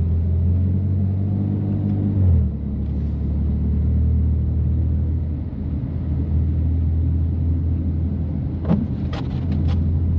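BMW F80 M3's twin-turbo inline-six, with catless downpipes and an always-open valved exhaust, running at low revs. Its note rises about a second in and drops off suddenly just after two seconds, then settles back to a steady drone; a few short sharp clicks come near the end.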